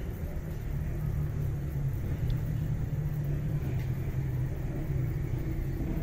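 A low steady rumble throughout.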